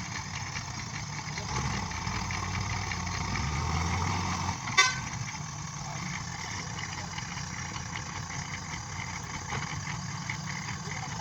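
Construction vehicle engine running steadily, heavier for a few seconds, with a single sharp knock about five seconds in.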